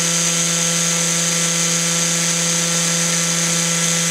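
Brushless outrunner motor (4250-size, 480KV) running at a steady speed and spinning its output shaft through a universal joint, giving an even hum with a high whine above it.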